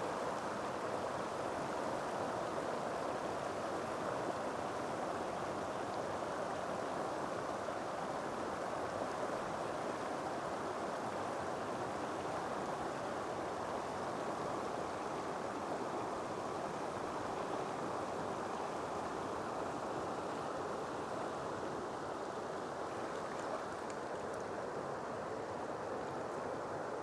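Flowing river water, a steady even rush with no distinct splashes.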